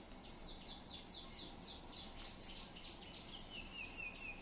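A songbird calling: a fast series of short falling chirps, about five a second, which drop to a lower run of repeated notes near the end.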